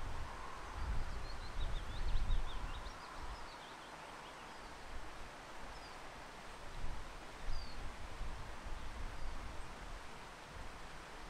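Wind gusting and tree leaves rustling, with low rumbling buffets on the microphone. A small bird chirps in a quick run of high notes a couple of seconds in, then gives a few single notes later.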